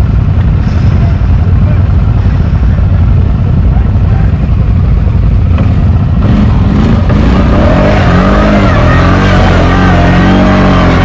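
CFMoto X8 ATV's V-twin engine running at low revs, then from about six seconds in pulling harder with a wavering pitch as the quad climbs a steep slope.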